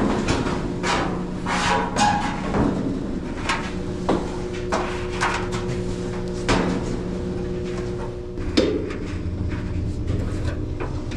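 Knocks, clicks and clatter from the parts of an Amana dryer being handled while its drive belt is fitted. A steady low hum runs underneath and stops about eight and a half seconds in.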